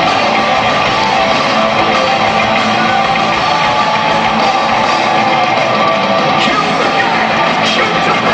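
Heavy metal band playing live, electric guitars to the fore, loud and steady.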